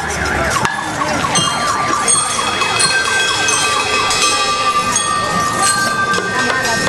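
School rhythm band playing, with a fast warbling siren-like tone that rises and falls several times a second and gives way to steadier held notes, and short high bell-like notes over it.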